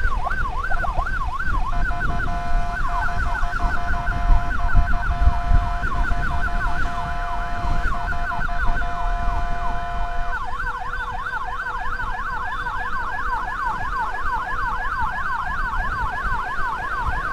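Emergency sirens sweeping up and down, joined by a steady horn-like tone from about two seconds in until about ten seconds in; after that the sweeps come faster. Road and wind rumble underneath.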